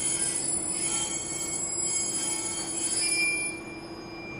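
KiHa 120 diesel railcar's wheels squealing in several high, wavering tones, dying away about three and a half seconds in, over a steady low hum.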